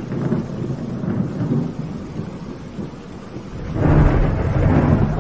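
Thunderstorm: rolling thunder over steady rain, with a louder peal of thunder rumbling in near the end.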